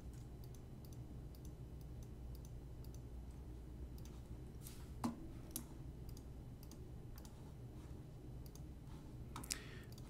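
Faint, scattered computer mouse clicks over a low, steady hum, with one sharper click about five seconds in.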